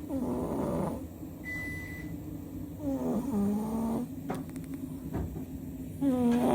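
A domestic cat snoring loudly: three drawn-out, pitched snores, one breath about every three seconds.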